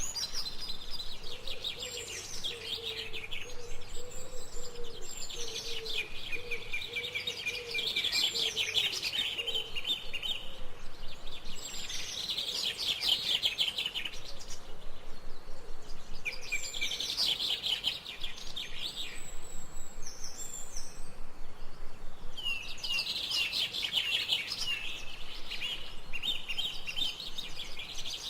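Small songbirds chirping rapidly in bouts a few seconds long, with short pauses between bouts.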